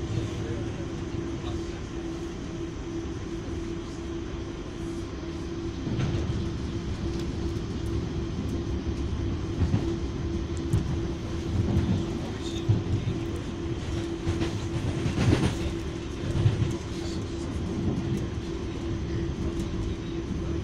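Cabin noise inside an Auckland AM-class electric commuter train under way: a low rumble with a steady hum, and a few short knocks partway through.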